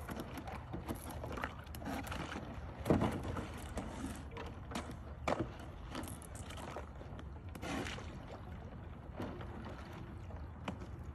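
Kayak paddle strokes: the blades dip and splash in the water, with irregular sharp knocks. The loudest knock comes about three seconds in, over a low steady rumble.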